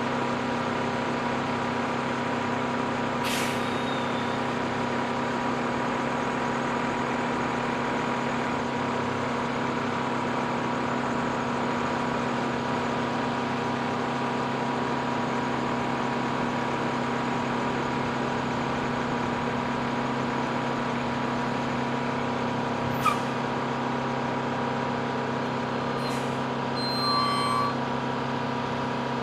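R-11 refueling truck's engine running slowly with a steady hum as the truck creeps up a ramp into an aircraft's cargo hold. A short hiss of air brakes comes about three seconds in, a sharp click near the end, and a brief squeal just after it.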